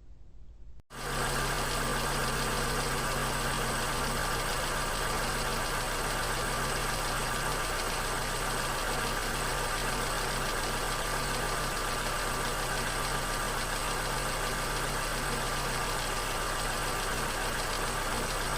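Car engine running with a steady rapid knocking from uncontrolled combustion: detonation (spark knock, also called pinking or pinging). It starts abruptly about a second in and cuts off sharply at the end.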